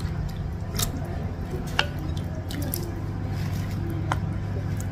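Soup broth dripping and sloshing with wet squishing as a wooden spoon and fork work at a giant bakso meatball in its bowl, with a few sharp clicks of the utensils.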